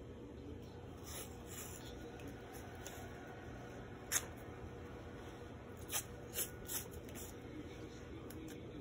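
White athletic tape being pulled off its roll and laid onto an ankle: short ripping sounds, a sharp one about four seconds in and three quicker ones between six and seven seconds, over a faint steady hum.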